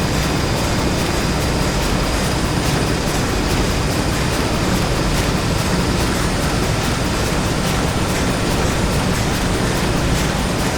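Theatre sound-effect bed of factory machinery: a dense, steady mechanical din with a low hum and faint, regular ticking clatter.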